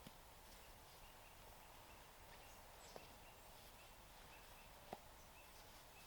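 Near silence: faint outdoor quiet with a scattering of faint, short, high chirps and two soft ticks, about three and five seconds in.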